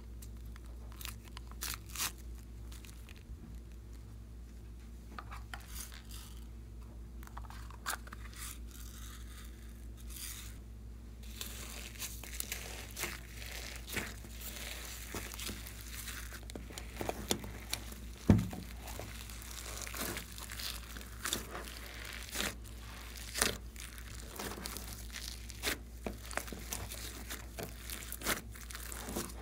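Slime being squished and stretched by hand, making sticky clicks and crackles. The crackling thickens about a third of the way in, with one louder pop just past the middle.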